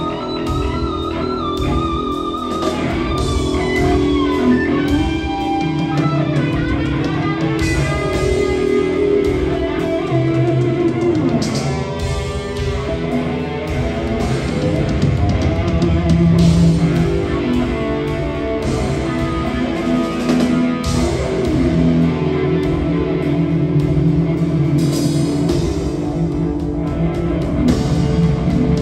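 Rock band playing live, with an electric guitar leading over bass and drums; a held guitar note wavers with vibrato in the first few seconds.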